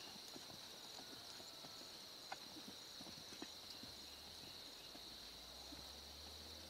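Faint, soft hoofbeats of a palomino Paint-bred gelding loping on arena sand, over a steady high chirring of crickets.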